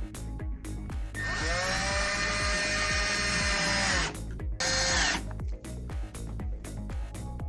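Power drill spinning up and running steadily on a door-hinge screw for about three seconds, then a short second burst, over background music with a steady beat.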